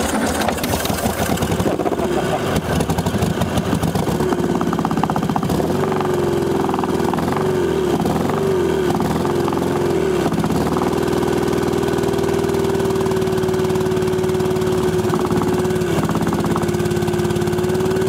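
Volkswagen Super Beetle's air-cooled flat-four engine running with no carburetor fitted, fed only by carburetor cleaner sprayed into the intake. Its speed sags and picks up again several times in the first ten seconds as the spray comes and goes, then it runs steadily, with one brief sag past the middle.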